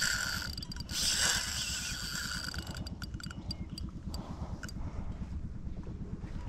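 Fishing boat's engine running steadily as a low rumble, with a short rushing hiss about a second in.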